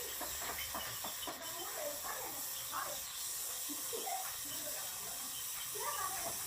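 Steady hiss of gas during refrigerator compressor replacement, with faint voices or animal calls in the background.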